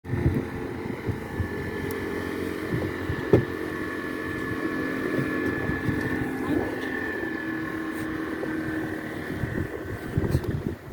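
A boat's outboard motor running steadily at cruising speed with an even whine, with wind buffeting the microphone.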